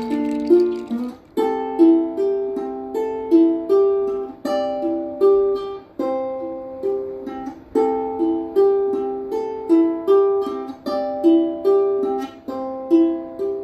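Instrumental music: a plucked string instrument plays a repeating melody of short notes, each fading quickly, in a steady rhythm.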